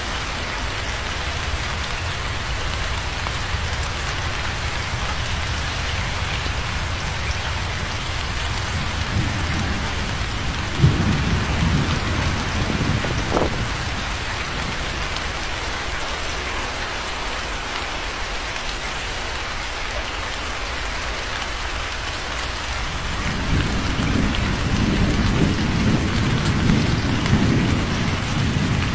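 Steady rain falling, with thunder: a sharp crack about eleven seconds in that rolls off over a few seconds, and a long low rumble of thunder building in the last several seconds.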